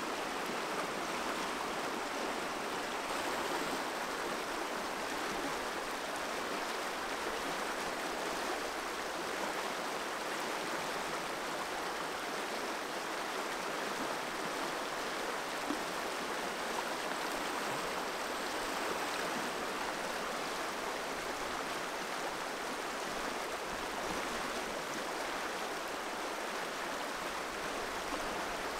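Shallow, fast river running over rocks and small rapids: a steady, even rush of water.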